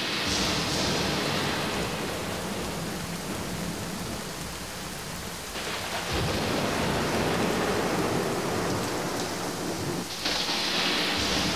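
Heavy rain pouring steadily, with thunder rumbling; the rumble swells suddenly about six seconds in and again near the end.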